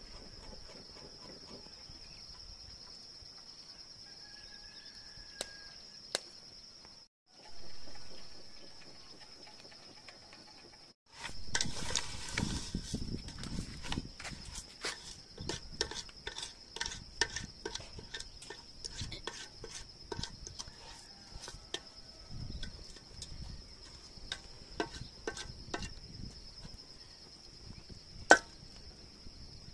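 A steady high insect trill, with pots and utensils clattering and knocking from about a third of the way in. One sharp knock near the end is the loudest sound.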